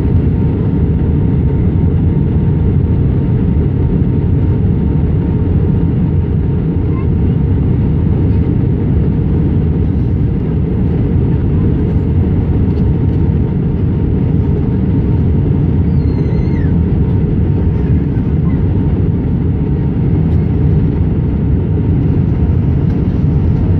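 Steady cabin noise inside an Airbus A319 on descent: an even, deep roar of airflow and its IAE V2500 engines, with a faint steady hum above it.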